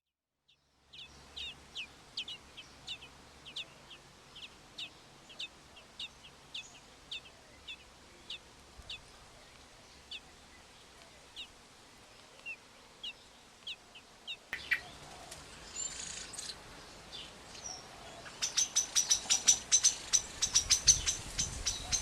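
Birds chirping at a nest: short, falling chirps about twice a second. Near the end they give way to a louder, much faster run of high chirps.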